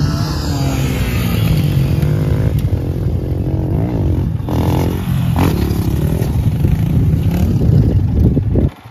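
Dirt bike engine revving, its pitch rising and falling as it rides close by, over a steady low engine drone. The sound drops out briefly near the end.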